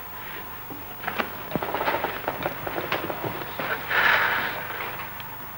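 Crackle and scattered clicks from an old film soundtrack over its noise floor, with a short breathy hiss about four seconds in.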